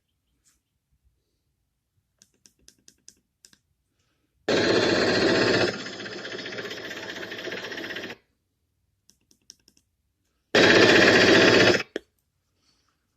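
Prop-gun sound effects played through a small portable Bluetooth speaker in a Z-6 rotary cannon prop, recorded on a phone. A few faint clicks, then a loud noisy blast for about a second that drops into a quieter sustained sound for two more seconds, more faint clicks, and a second loud blast lasting just over a second.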